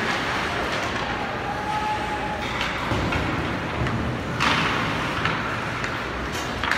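Ice rink game noise: a steady hiss with scattered knocks and thuds, and a brief louder hiss about four and a half seconds in.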